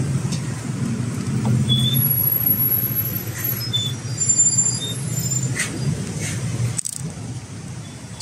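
City street traffic: the steady low rumble of idling buses and minibuses close by, with a few faint short high squeaks over it.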